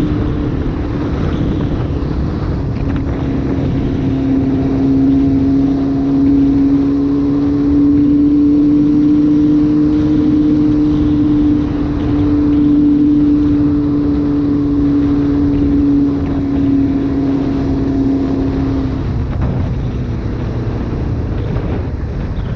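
Yamaha FZR600 inline-four engine running at steady cruising revs, under a constant rush of wind and tyre noise on gravel. About nineteen seconds in the engine note drops away, leaving the wind and tyre noise.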